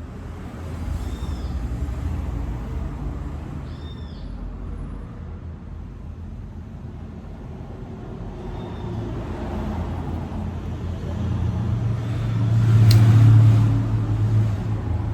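Low rumble of road traffic, with a vehicle passing that swells to its loudest about 13 seconds in and then fades. There are two short high chirps early on.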